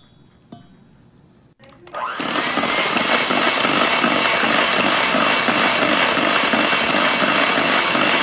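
Electric hand mixer switched on about two seconds in, its motor spinning up with a rising whine and then running steadily as its twin beaters churn banana batter in a stainless steel bowl.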